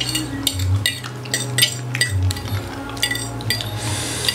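Metal fork and knife scraping and clinking against a ceramic plate in a quick series of short clinks, gathering leftover noodles.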